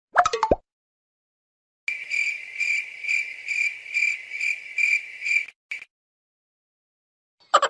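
Cricket chirping sound effect: a high, steady chirp pulsing about twice a second for about three and a half seconds, then cutting off. A brief pitched cartoon effect comes just before it, and another starts near the end.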